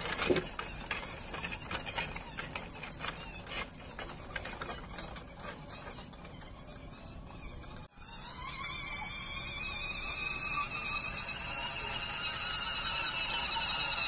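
RC model Claas Axion 950 tractor on the move. For the first half there are squeaks and many small crackles from the tyres and drive. After a sudden break, its electric drive whines, rising slowly in pitch and growing steadily louder as it comes closer.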